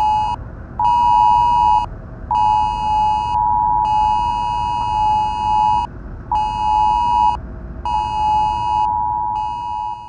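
Wireless Emergency Alert attention tone for a tornado warning on mobile phones: a loud two-tone beep sounding in long and short blasts with half-second gaps. A low car-cabin rumble lies beneath it.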